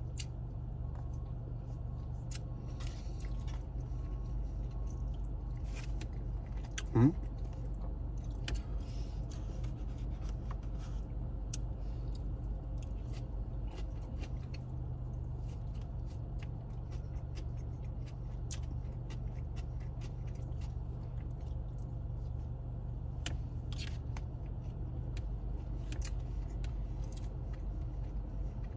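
Close-up chewing of honey-topped cornbread: soft wet smacks and small mouth clicks over a steady low hum in a car cabin. One brief louder sound, rising in pitch, comes about seven seconds in.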